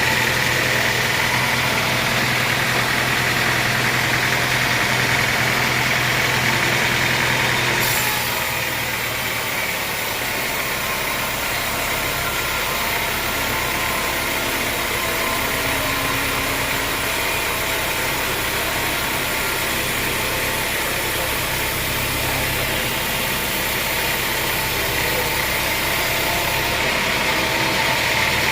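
Sawmill machinery running steadily, with an engine-like drone. About eight seconds in its tone shifts and the higher whine fades; it shifts back near the end.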